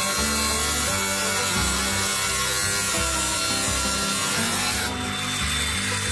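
Cordless angle grinder with a thin cut-off disc cutting through a galvanized steel handrail post, a steady grinding hiss. About five seconds in the sound changes to a steadier, thinner whine as the disc comes off the cut.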